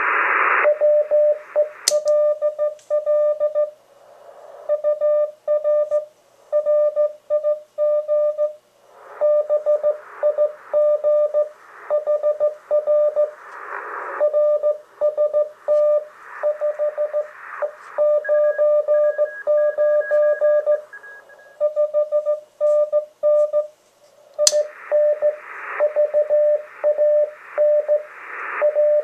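Morse code (CW) from a ham receiver on the 40 m band, a keyed tone near 600 Hz heard through a SCAF-1 switched-capacitor audio filter, with band hiss coming and going in patches and a fainter, higher-pitched interfering Morse station. A switch clicks about two seconds in and again near the end, the filter being switched in and out of bypass.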